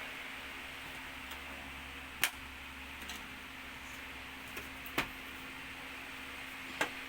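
Three sharp clicks or taps, about two, five and seven seconds in, and a few fainter ticks, over a steady hiss and a faint low hum.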